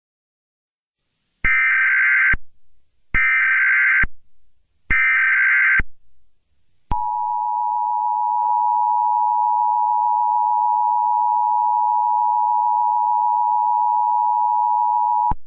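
Emergency Alert System header: three short bursts of SAME digital data tones, each about a second long, followed from about seven seconds in by the steady two-tone EAS attention signal, which holds for about eight seconds and cuts off.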